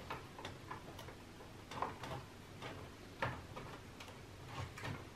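Faint, scattered light clicks and taps of fingers working at plastic cable connectors inside an amplifier's chassis, at an uneven pace.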